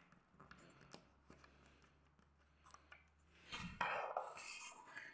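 Handling noise as small LEGO minifigures are moved by hand on a hard floor: a few faint clicks and taps, then a louder rustling scrape about three and a half seconds in.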